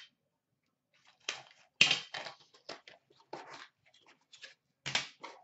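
A small cardboard box being torn open by hand: a run of short ripping and crinkling sounds that starts about a second in, loudest about two seconds in and again near the end.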